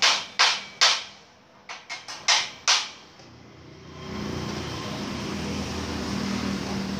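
A hand hammer striking a steel gate frame, about eight blows in the first three seconds, some hard and some lighter taps. A steady hum sets in about four seconds in.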